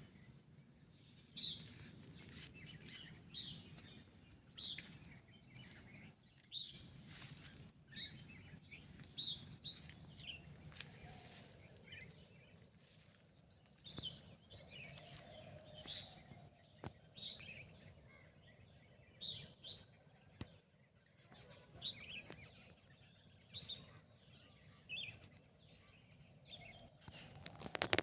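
Birds chirping: short, high calls repeating about once a second over a faint, steady background noise.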